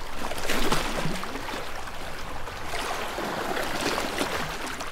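Steady rushing water, with a few faint low bubbling glides.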